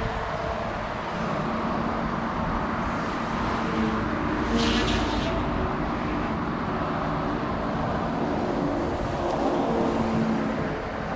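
OMP Hobby M2 electric RC helicopter flying, its brushless motor and rotor hum shifting in pitch as it manoeuvres, with wind buffeting the microphone. A short higher hiss comes about four to five seconds in.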